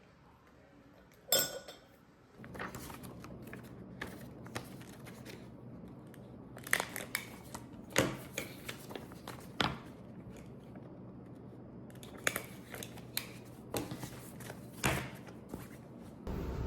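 Objects being handled at close range: scattered sharp clicks and rustling, with a steady low hum starting a couple of seconds in.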